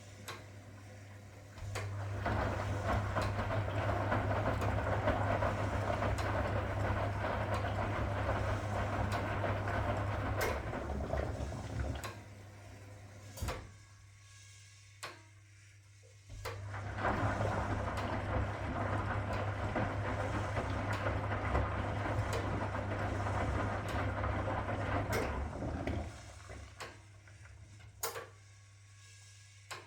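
1961 AEG Lavamat Noris washing machine in its wash rhythm: the motor turns the drum with laundry and water churning for about nine seconds, stops for a few seconds, then runs again for about nine seconds and stops. Sharp clicks come during the pauses.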